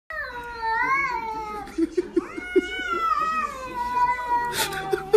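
A cat giving two long, drawn-out meows. The first wavers up and down in pitch; the second is held longer and falls off near the end.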